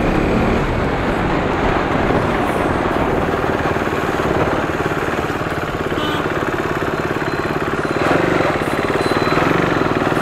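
Motorcycle engine running under way, heard through a lavalier microphone fixed on the rider's helmet, with steady wind and road noise. The level eases off around the middle and rises again about eight seconds in.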